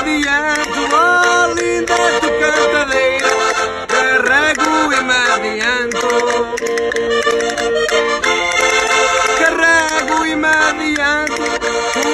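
Accordion playing a folk-style tune with a voice singing over it.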